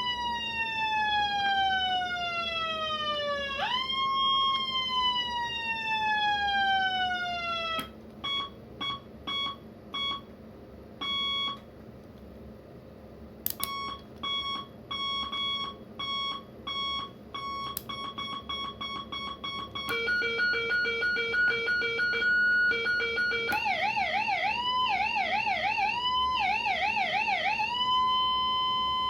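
Troots SD1 electronic siren stepping through its tones. First come two long falling sweeps, each dropping for a few seconds before jumping back up. Runs of short beeps follow, then a pulsing buzz, a fast warble from about 24 seconds in, and a steady held tone near the end.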